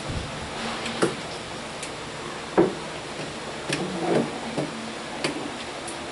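Classroom room noise with scattered light clicks and knocks, one sharper knock about two and a half seconds in, and faint murmuring voices around four seconds in.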